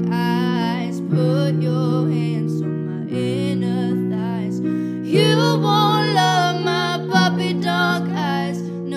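Pop song: a female singer sings the chorus over held chords that change about every two seconds.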